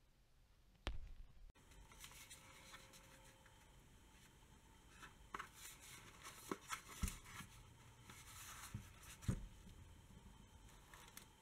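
A cardboard box being handled: faint rubbing and a few soft thumps and taps as it is turned in the hands and laid on a cutting mat. There is a sharper knock about a second in.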